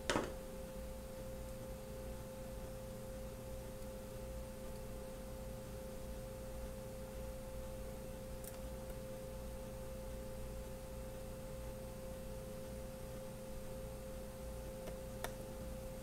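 Faint steady hum on a single pitch, with a sharp click right at the start and two light ticks later, about halfway through and near the end, as screws are put back into the laptop screen's mounting by hand with a small screwdriver.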